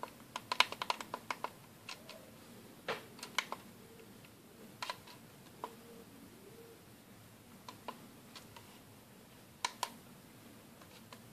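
Plastic push buttons on an ELV UT100 plug-in digital thermostat clicking as they are pressed: a quick run of about eight clicks in the first second and a half, then single clicks and pairs spread out, the last pair near the end.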